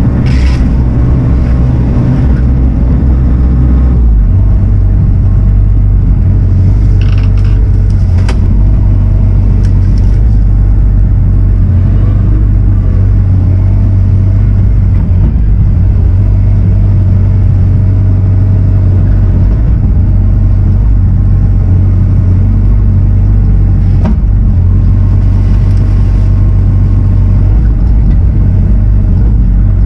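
Heavy-equipment diesel engine running steadily at work, its tone shifting about four seconds in, with a few short scrapes and knocks.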